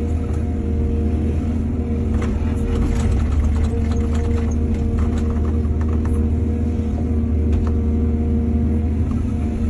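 Excavator's diesel engine running steadily with a deep hum, with scattered sharp knocks and clatter a couple of seconds in that die away after a few seconds.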